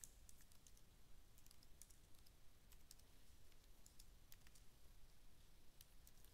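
Faint, irregular keystrokes on a computer keyboard while code is being typed.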